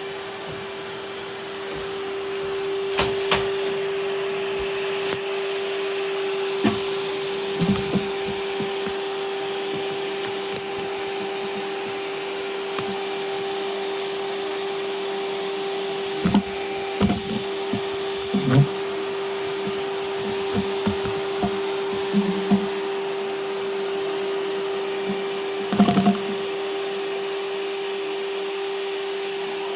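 Vacuum cleaner running steadily with a constant hum while it sucks spider webs, with several short knocks scattered through, clustered around the middle and once more near the end.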